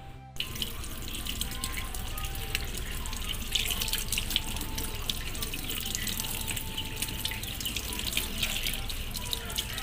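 Tap water running into a stainless steel sink and splashing over hands being rinsed under the stream, starting about a third of a second in.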